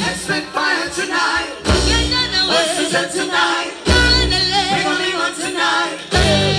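A woman singing over loud amplified pop backing music, her voice wavering in long ornamented runs; the deep bass drops out and comes back in several times.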